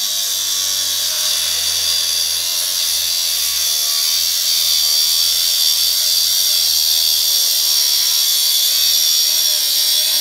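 4.5-inch angle grinder with a Bad Dog Tools HD2 diamond cutting wheel cutting steadily through a crushed, seized steel tie rod end sleeve: a continuous high-pitched grinding hiss over the motor's hum.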